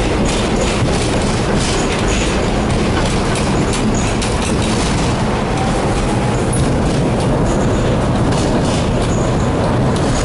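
Tatra tram running along its track: a steady rumble of wheels and running gear, with short clicks as the wheels pass over the rail joints.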